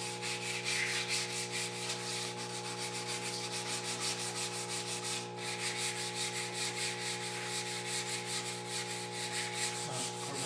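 Sandpaper rubbed by hand along the edge of a mahogany door, quick rhythmic back-and-forth scratching strokes that ease the sharp corner of the edge. A steady hum runs underneath.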